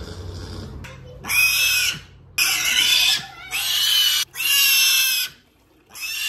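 A piglet squealing while being held and washed: four loud, high-pitched squeals of about a second each, with another starting near the end.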